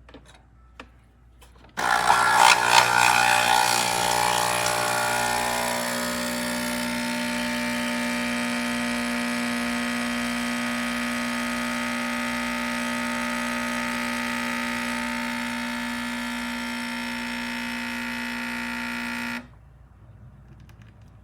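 A few light clicks, then the Nespresso Pixie's pump starts abruptly and runs for about 17 seconds, spluttering for the first few seconds and then settling into a steady hum, before cutting off suddenly. The owner says that on the short espresso button the machine keeps running instead of stopping.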